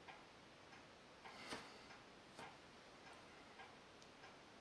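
Near silence with faint, irregular light clicks as small metal parts of a bicycle hub gear are handled and fitted.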